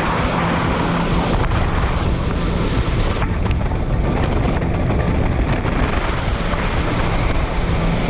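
2019 Kawasaki Jet Ski engine running steadily under way, with a constant rushing noise over it.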